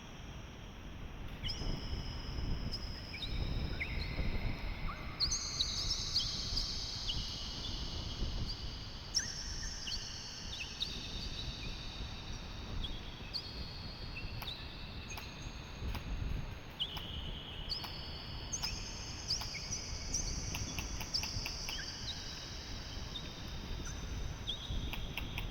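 Wind buffeting the microphone as a steady low rumble, with high, thin whistling tones over it that hold for a second or more and change pitch in steps.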